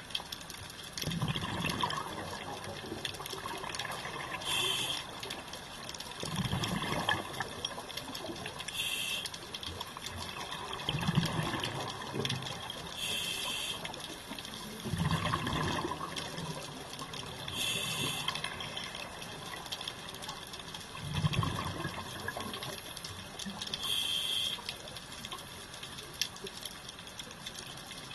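Scuba diver breathing through a regulator underwater: a short hiss on each inhale, then a low rush of exhaled bubbles, about five breaths at a steady pace of one every four to five seconds.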